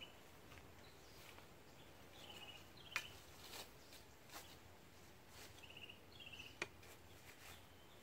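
Quiet outdoor ambience with a few faint, short trilled chirps from a small creature, and two sharp clicks about three and six and a half seconds in.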